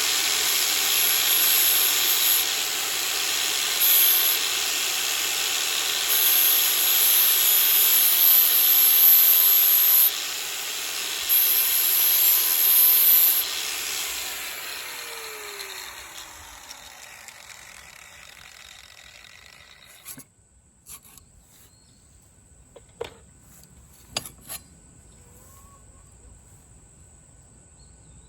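DeWalt power sander grinding a steel machete blade, the motor's steady whine overlaid by several stretches of louder, high grinding hiss. About 14 seconds in it is switched off and winds down with a falling hum, followed by a few light clicks and knocks.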